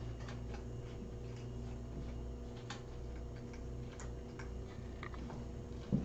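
Faint, irregular light clicks and taps over a steady low electrical hum.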